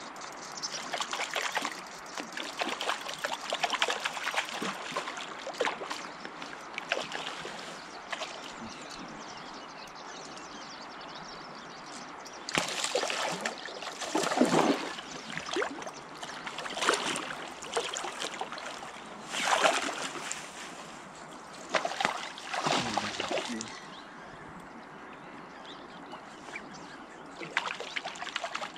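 River water running around the wading angler, broken from about halfway through by a series of short loud splashes a few seconds apart as a hooked trout thrashes at the surface during the fight.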